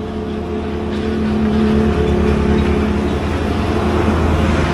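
An engine running at a steady pitch, growing louder about a second in and then holding.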